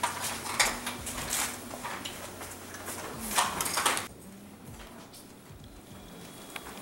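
Scuffs, rustles and knocks of people moving about at cafeteria tables, coming in several short bursts. About four seconds in, this gives way abruptly to a much quieter, even room tone.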